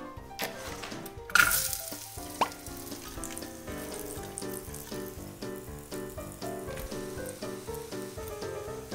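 Chicken nuggets frying in hot cooking oil in a nonstick pan. A loud burst of sizzling about a second and a half in fades over half a second into a steady soft sizzle, with a short knock soon after. Background music plays throughout.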